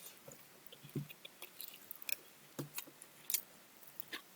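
A person eating close to the microphone: scattered soft clicks and small crunches of chewing, at an irregular pace.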